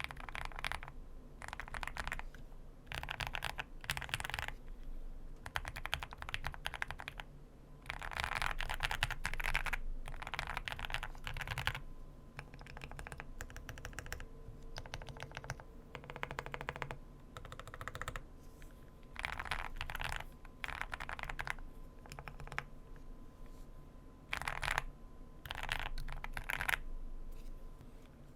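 Custom mechanical keyboard typing: an Owlab Spring with Everglide BeesWax linear switches and PBT double-shot OEM-profile keycaps. Quick runs of keystrokes last a second or two each, with short pauses between the runs.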